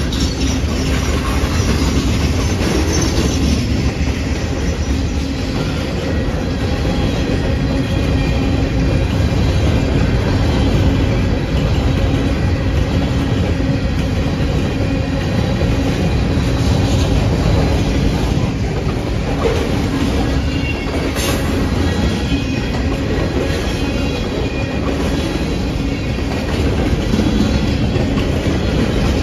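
Freight train cars rolling past at a steady speed, their steel wheels running loudly and continuously on the rails.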